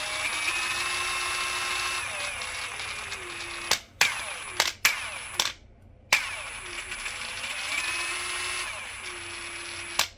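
Mastercraft 40V Maximum cordless impact wrench running at speed with a steady motor whine. It stops about four seconds in, with a few sharp clicks and a brief pause, then runs again until just before the end.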